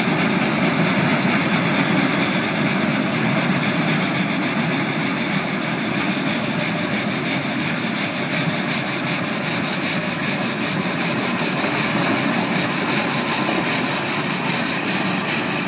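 Cog railway steam locomotive No. 9 'Waumbek' coming slowly down the rack track with its coach: a steady mechanical rattle and hiss with a fast, even clatter, easing slightly toward the end.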